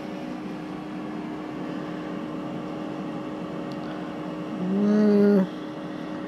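Ninja air fryer running mid-cook: its fan and heater give a steady hum with a constant low tone. About five seconds in, a short, louder voiced 'mm' rises over it for under a second.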